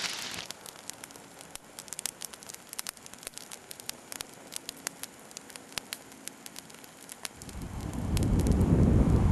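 Irregular crackling: scattered sharp clicks over a faint hiss. Near the end a low rumbling noise swells up and takes over.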